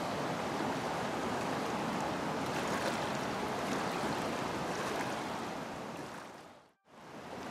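Fast-flowing mountain river: a steady, even rush of water that cuts out briefly near the end.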